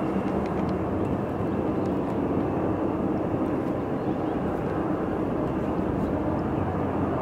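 Steady, distant jet-engine rumble of a Boeing 767-200 freighter flying in with its landing gear down.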